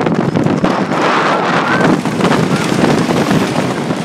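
Wind rushing hard over the microphone and the rumbling clatter of the Coney Island Cyclone's train running fast along its wooden track.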